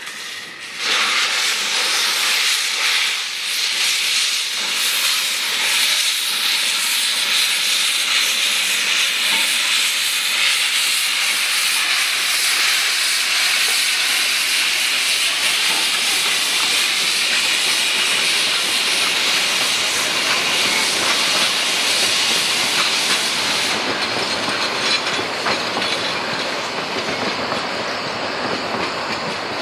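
Saxon IV K narrow-gauge steam locomotive starting away with its train, steam hissing loudly from its open cylinder drain cocks. The hiss sets in suddenly about a second in, holds steady, and turns duller near the end as the train moves off.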